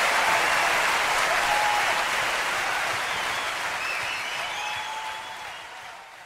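Audience applause at the end of a live performance, with a few whistles, fading out gradually.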